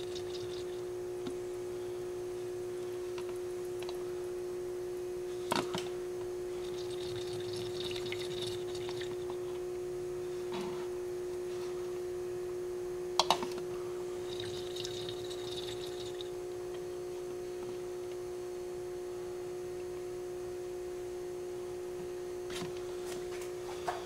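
Automatic transmission fluid poured from a plastic jug through a funnel into a car's power steering reservoir, trickling and splashing in three short spells, with two sharp knocks in between. A steady hum runs underneath.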